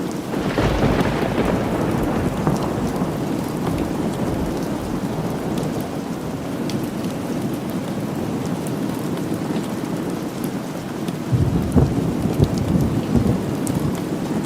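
Steady rain falling, with a crack of thunder just after the start that rolls off over about two seconds, and a second, lower rumble of thunder about eleven seconds in.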